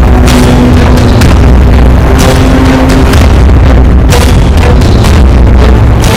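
Loud background music with drum hits over a deep, steady bass.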